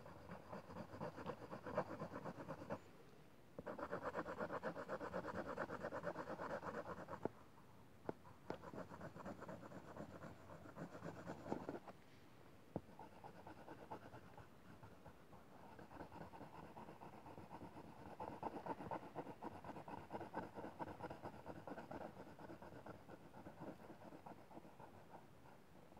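Black coloured pencil scratching on drawing paper in quick back-and-forth shading strokes. It comes in stretches, breaking briefly about three seconds in and again about seven seconds in, then goes on more softly.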